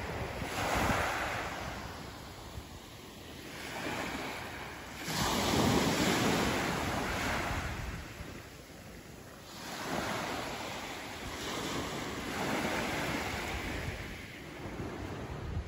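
Small waves breaking and washing up a sandy beach, the surf swelling and fading every few seconds, with wind buffeting the microphone.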